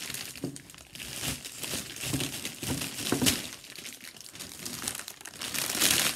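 Clear cellophane wrapping on a gift basket crinkling and crackling as it is pulled open and handled, in irregular bursts that are loudest about three seconds in and near the end.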